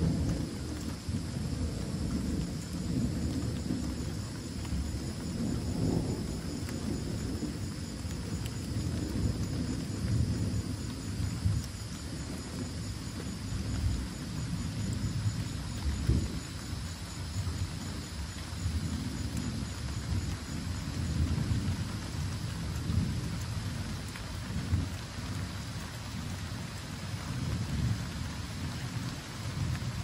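Gentle rain falling, with thunder rumbling deep and rolling, swelling and fading in waves.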